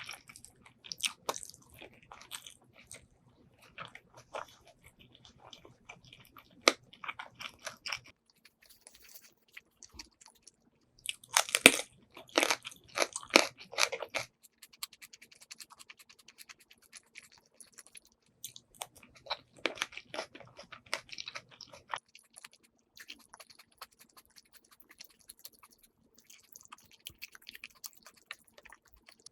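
Close-miked chewing and biting of braised pork ribs and rice: wet smacking and crunching mouth sounds in bouts of a few seconds, the loudest bout about a third of the way in.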